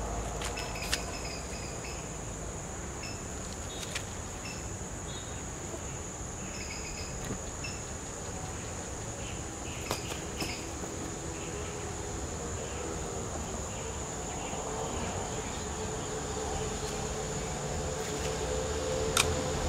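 Insects chirring steadily at a high pitch over a low rumble of wind, with a few sharp clicks, the loudest near the end. A low droning hum grows louder over the last few seconds.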